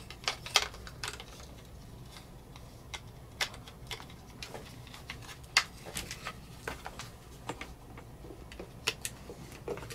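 Irregular sharp clicks and light clatter of the plastic parts of an Alien Gear ShapeShift holster being handled and fitted together, as the shell is reassembled with a belt-loop trigger guard. A few clicks stand out louder than the rest.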